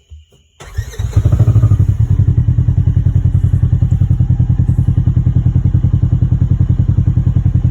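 Polaris Ranger UTV engine cranking briefly and catching just under a second in, then idling with a steady, rapid, even pulse.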